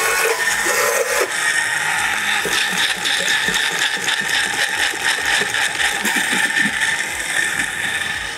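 Electric countertop blender running steadily, grinding whole tomatoes into a paste; it cuts off near the end.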